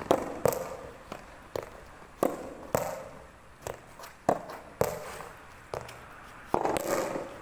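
Soft tennis rubber balls being struck by rackets and bouncing on the court: a string of sharp pops, roughly one every half second, some with a short hollow ring after them.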